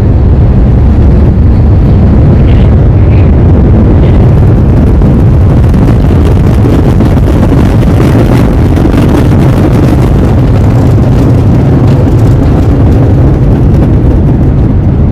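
Loud, steady rumble of a jet airliner heard from inside the cabin during the descent before landing.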